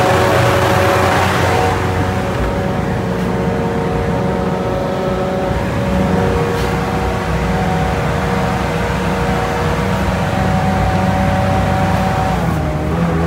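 Sherp ATV's diesel engine running steadily under way, heard from inside the cab, with several steady whining tones over the engine's drone that shift slightly near the end.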